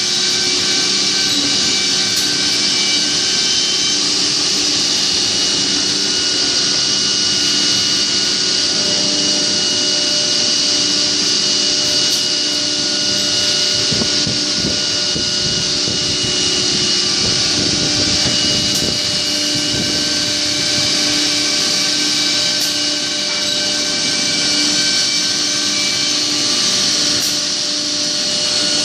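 CNC router spindle running at high speed and milling a wooden cabinet panel: a steady whine over continuous cutting noise, rougher and crackly for a stretch in the middle.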